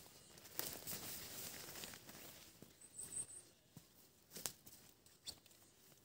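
Nylon rustling and crinkling of an inflatable sleeping pad being put down and spread on a tarp groundsheet, lasting a bit over a second, followed by a few soft clicks and taps.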